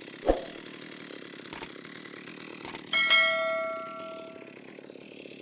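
A chainsaw runs quietly in the background. About three seconds in, a metal object is struck sharply and rings like a bell, fading over about a second and a half. A thump is heard near the start.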